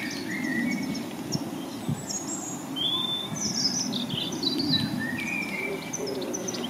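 Small birds chirping and singing in many short calls and whistles over a steady low background noise.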